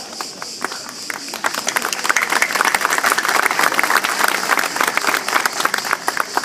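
Audience applauding, scattered clapping that builds about a second and a half in and thins out near the end.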